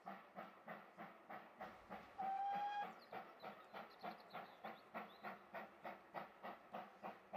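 Steam locomotive working a train, its exhaust beating evenly about three times a second. About two seconds in, it gives one short steam-whistle blast.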